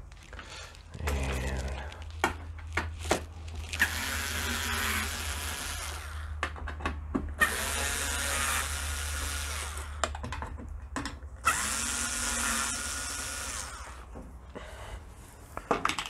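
Cordless drill-driver with a Torx T15 bit backing screws out of a dishwasher door. The motor runs three times for about two seconds each, speeding up and slowing down, with clicks and knocks in between.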